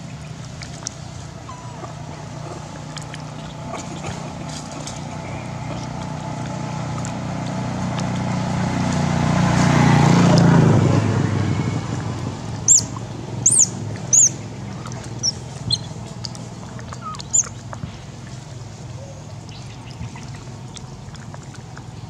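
A motor vehicle passing by: a low engine hum swells for several seconds, peaks about halfway through, then fades away. After it, several short, high-pitched chirps sound over a few seconds.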